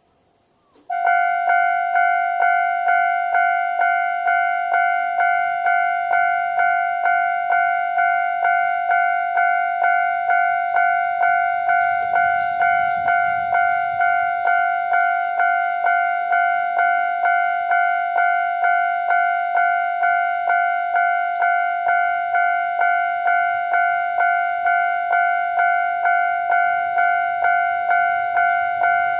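Japanese railway level crossing's electronic warning bell starts about a second in, then rings steadily: a repeated ding-like chime at about one and a half strikes a second. It signals that a train is approaching the crossing.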